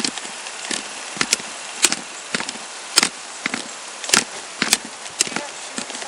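Footsteps on asphalt, with the officer's gear knocking against a body-worn camera at each step: sharp clicks and knocks about twice a second in a walking rhythm.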